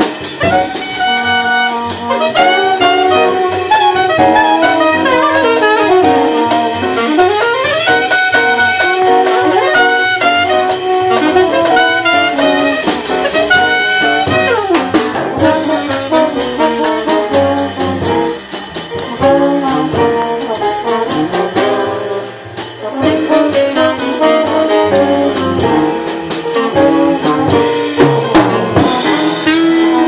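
Live small-group jazz: saxophone and trombone playing over piano, upright bass and drum kit, with a few long sliding pitches.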